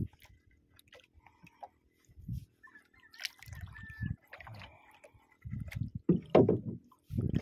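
Water lapping and sloshing against the hull of a small outrigger boat in uneven low splashes, loudest near the end, with faint scattered ticks.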